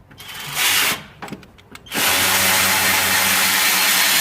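Power wrench undoing the remaining stabilizer-bushing bracket fasteners. It gives a short burst about half a second in, then runs steadily from about two seconds in.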